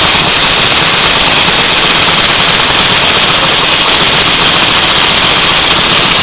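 Small brass single-cylinder model steam engine running fast: a loud steady hiss with rapid, machine-gun-like exhaust beats.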